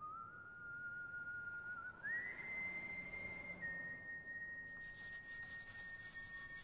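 A single high, whistle-like held tone opening the film's score. It steps up in pitch twice, then settles a little lower, and a crackling hiss joins it about five seconds in.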